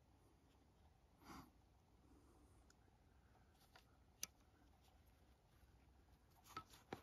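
Near silence: a soft breath about a second in, a single faint click in the middle and two more small clicks near the end.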